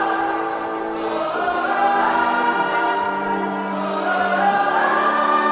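Music intro of choir voices singing long held chords that change every second or two, with no beat.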